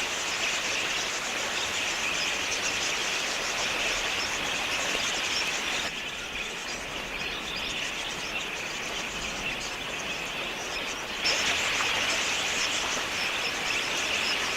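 A large flock of wild budgerigars chattering, a dense, steady high-pitched twittering of many birds at once. It dips a little about six seconds in and comes back louder about eleven seconds in.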